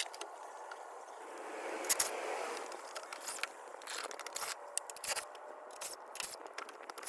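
Scattered sharp clicks and scraping of a tool and bolts being worked at a truck's underbody splash guard, with a brief swelling rush of noise about two seconds in.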